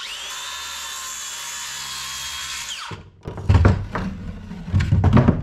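Makita cordless circular saw spinning up and cutting through an old wooden cabin sill, a steady high whine for about three seconds that winds down as the trigger is released. Then a few loud knocks and thumps as the saw is set down and the cut-off piece of wood is handled on the workbench.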